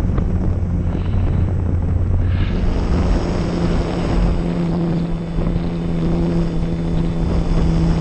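RC airplane motor and propeller running steadily in flight, its pitch stepping up about two and a half seconds in, under heavy wind buffeting on the microphone.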